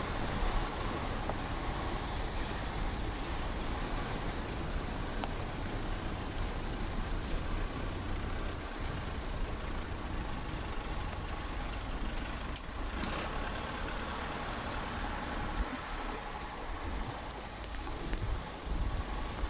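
Steady rumble of a pickup truck driving on a dirt road, with tyre noise, heard from its open side window, with wind buffeting the microphone.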